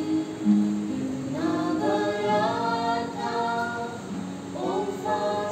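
A woman, a young man and a boy singing a hymn together in several parts, held notes sliding between pitches, over a strummed acoustic guitar.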